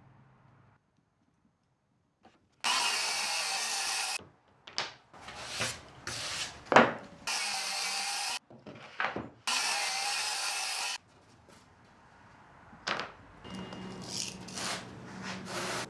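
A power tool working wood in three short bursts of about a second each, with sharp knocks and clatter of wood in between; the loudest knock comes about halfway through.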